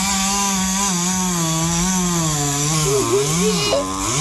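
Chainsaw running while cutting wood, its engine pitch wavering up and down and dipping lower about three seconds in before rising again.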